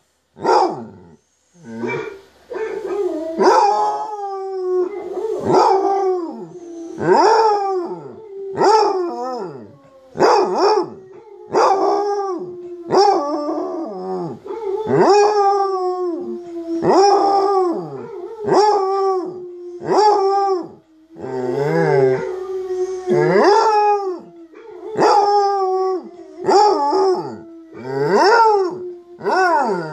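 Basset hound howling and baying over and over, about one long cry every second and a half, each dropping in pitch at its end.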